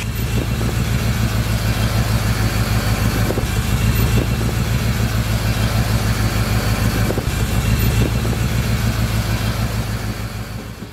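1938 Ford barrel-nose pickup's 302 Windsor V8 idling steadily, its exhaust note pulsing quickly and evenly, easing off slightly near the end.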